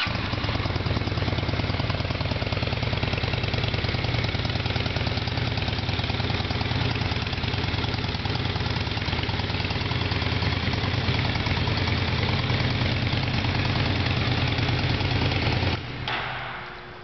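2007 Honda VT600 Shadow VLX's V-twin engine idling steadily, then switched off about a second before the end, the sound dying away.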